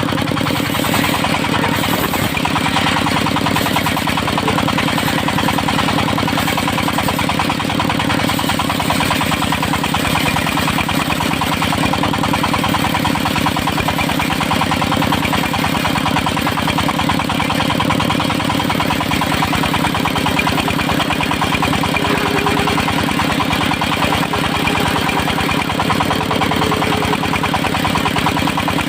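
The engine of a portable circular-saw sawmill running steadily at an even speed.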